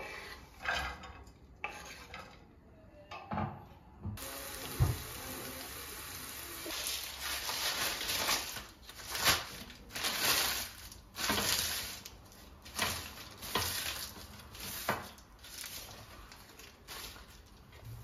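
Chopped green peppers scraped off a wooden board into a frying pan, then a steady frying sizzle from about four seconds in until near the end. Over it, sharp crackles as a sheet of baking paper is crumpled and pressed into a metal oven tray.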